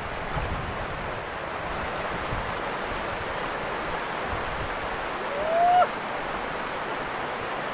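Rocky mountain river rushing over rapids: a steady, even rush of water, with some wind on the microphone. About five seconds in, a short sound rises in pitch and cuts off suddenly, the loudest moment.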